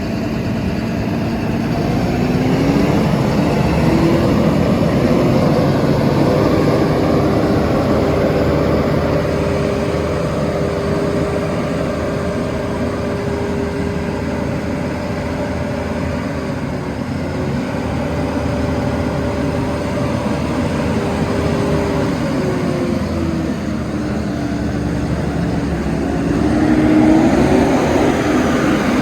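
Vögele Super 1803-3i asphalt paver's diesel engine running steadily. Its engine speed rises a few seconds in, holds, dips near the end and then climbs again.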